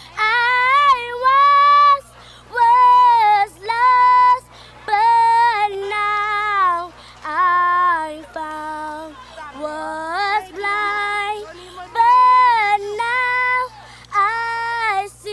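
Girls singing a song without instruments, in phrases of held notes with short breaks between them.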